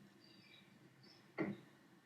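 Near silence: quiet room tone, broken by one brief, short sound about one and a half seconds in.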